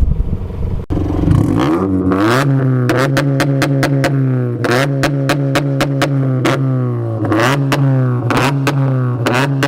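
Toyota 86's flat-four engine revs up about a second in and is held at a steady high rpm on launch control, with frequent sharp pops and cracks from a backfire tune. The pitch dips briefly a few times and comes straight back up. Really loud.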